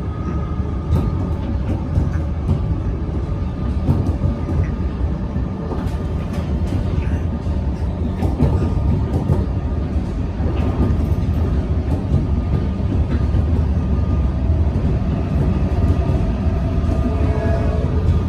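Melbourne Metro electric suburban train running: a steady, loud low rumble with faint steady tones above it, and a few higher tones rising near the end.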